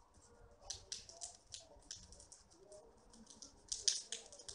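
A Persian cat chewing a rat: faint, irregular crunching clicks, with the loudest ones near the end.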